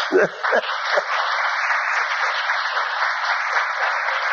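Audience applauding steadily, with a few bursts of laughter in the first second.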